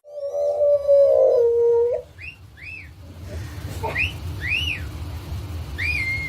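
A dog howls in one long, slightly falling note for about two seconds. It follows with a string of short, high whines that rise and fall.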